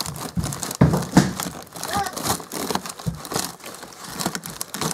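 Plastic freezer bags crinkling and rustling as frozen packages are pushed aside in a packed freezer, with a few knocks of frozen items bumping together, the loudest pair about a second in.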